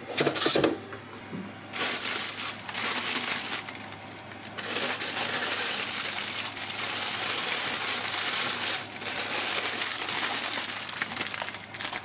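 Thin plastic produce bags of leafy greens crinkling and rustling as they are handled and lifted out of a refrigerator vegetable drawer, a continuous crackle from about two seconds in that eases briefly twice.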